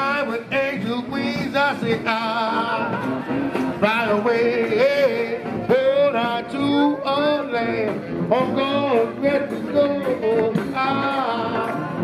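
New Orleans-style brass band playing live: sousaphones, trombones, saxophone and bass drum, with a singer's wavering voice carried over the horns.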